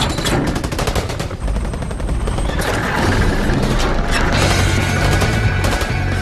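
Action-film sound mix: rapid gunfire over roughly the first two seconds, then mechanical clanking under a deep, steady music score as a crane's electromagnet lifts an armored truck.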